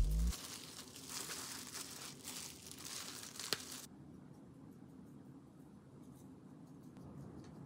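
Thin plastic gloves crinkling as raw salmon fillets are handled, with a sharp click about three and a half seconds in. Then it turns quieter, with faint scattered ticks of salt shaken from a shaker onto the fillets on a metal tray.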